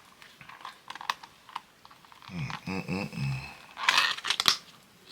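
Handling noise from takeout food containers: scattered light clicks and taps, with a brief hummed voice sound midway and a short hissing rustle about four seconds in.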